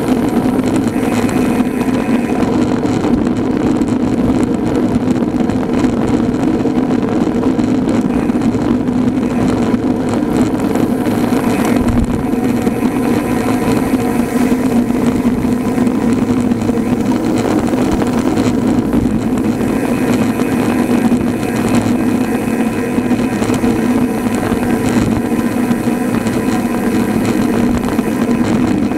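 Steady road noise of riding a road bike at speed: tyres humming on tarmac and wind on the microphone, one even drone with a brief bump about twelve seconds in.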